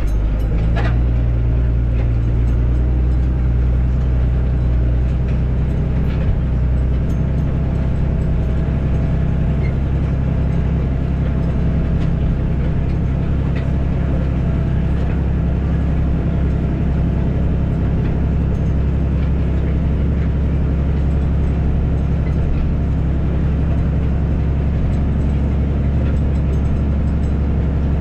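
Tractor's diesel engine running steadily under load, pulling a reversible plough through the ground, heard from inside the cab; the pitch holds even throughout.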